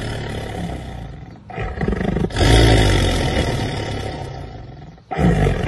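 Black panther snarling in three harsh growls, the second the loudest and longest, each fading off before the next.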